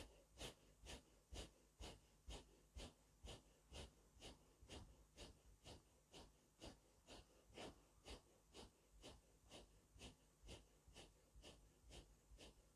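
Faint, forceful rhythmic breathing, about two sharp breaths a second, drawn in and out through the nose: the breath-driven silent zikr of the Naqshbandi Owaisiya zikr-e-khafi, each breath striking 'Allahu' on all the lataif together.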